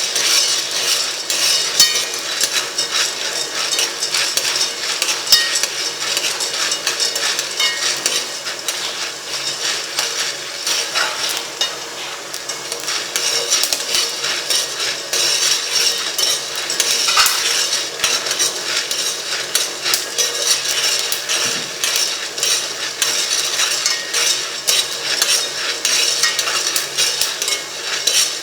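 Food frying with a steady sizzle in a pan while a metal utensil stirs it, with many quick clinks and scrapes against the pan.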